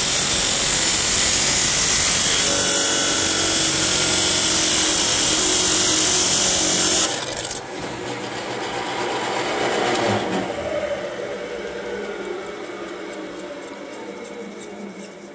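Metal cutoff saw with a 5 hp Baldor three-phase motor cutting through square steel tubing, a loud high grinding hiss. About seven seconds in the cut breaks through and the sound drops suddenly. The blade and motor then wind down, fading steadily, with a brief swell about ten seconds in.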